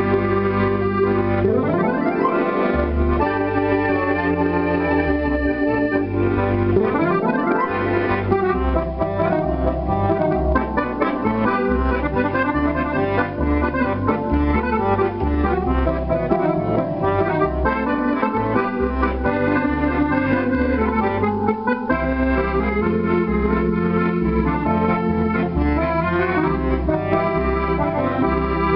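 Zero Sette electronic accordion being test-played through an amplifier: a continuous tune of held chords and melody notes over a bass line that moves in regular steps.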